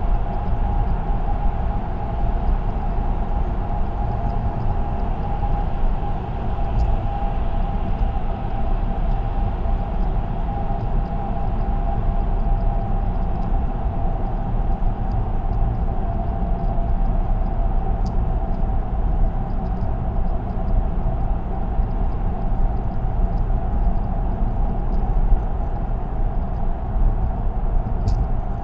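A car cruising at expressway speed: steady tyre and road noise with a constant hum.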